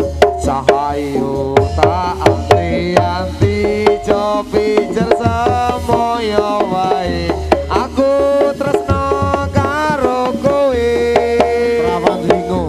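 Javanese jathilan accompaniment: kendang hand drums play a brisk, busy pattern under a wavering, sliding melody line.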